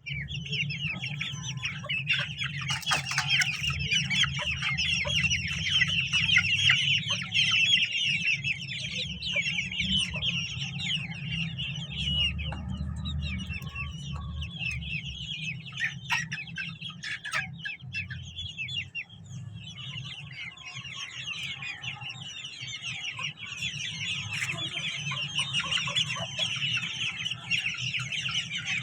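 A flock of chickens calling and clucking, many short overlapping calls at once, over a low steady rumble.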